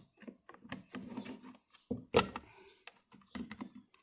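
Parts of an Nvidia Shield TV being handled and fitted back together by hand: scattered light clicks and rubbing, with one sharper click about two seconds in.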